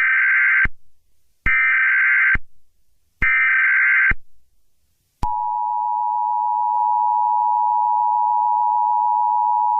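Emergency Alert System signalling tones: three one-second bursts of buzzing digital data, evenly spaced, marking the end of the message. About five seconds in, a loud, steady two-tone EAS attention signal starts and holds.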